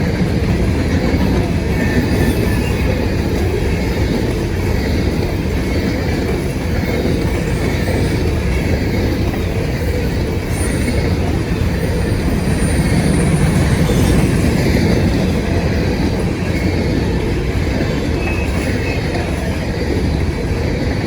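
An empty grain train's freight cars roll past at speed, a steady, loud rumble of steel wheels on rail, with faint high wheel squeals around the middle.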